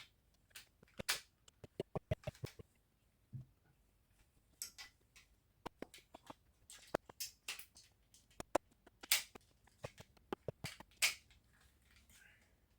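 Plastic clicks and light knocks from the rear cover of an Xbox One S controller being handled and fitted onto the controller, a couple of dozen irregular sharp taps, the loudest about a second, nine seconds and eleven seconds in.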